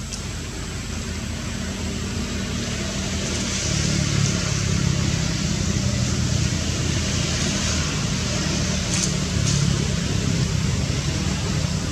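A motor engine running steadily with a low hum, growing louder over the first few seconds and then holding, with a couple of faint clicks near the end.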